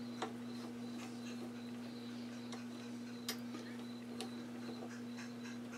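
Faint, scattered clicks and ticks of a screwdriver turning the small shouldered retaining screw of the presser bar arm in a Singer 201 sewing machine head, a few sharper ticks among them, over a steady low hum.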